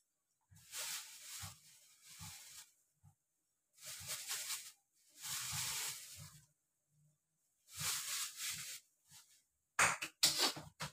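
Rustling handling noise in about six separate bursts of around a second each, with light knocks underneath; the last two, near the end, are sharper and louder.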